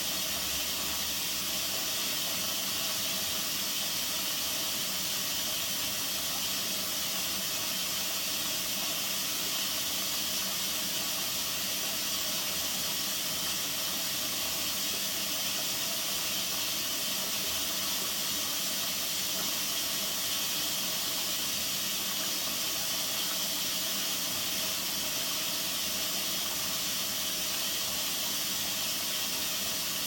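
Bendix 7128 washing machine running a Synthetics 60 wash: a steady hiss with a faint low rumble under it, unchanging throughout.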